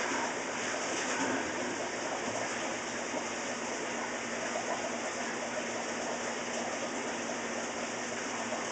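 Water running steadily through hoses into an aquarium as it is refilled, with the faint steady hum of the electric pump pushing the water from a tub.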